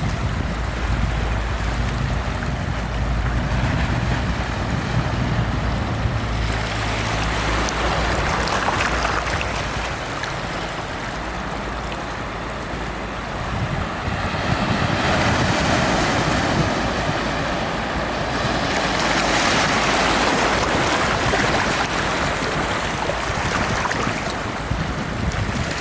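Ocean waves breaking and washing up the shore, the surf swelling and falling back in three or four surges.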